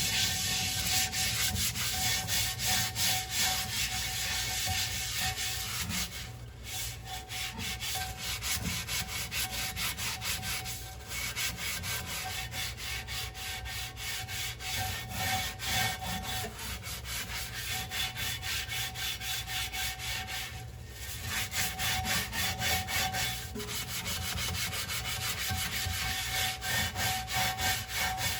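Dishes being scrubbed by hand, a rhythmic rubbing of about two strokes a second, broken by a few short pauses.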